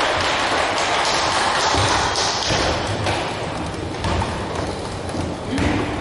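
Thuds and taps from a wheelchair basketball game in a large hall, over a steady noisy background.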